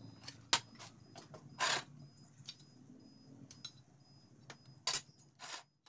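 Scattered metal clicks and clunks, with a short scrape, from a homemade belt sander's spring-loaded tension arm and belt being handled with the grinder switched off. The loudest clicks come about half a second in and just before 5 seconds; the scrape comes near 2 seconds.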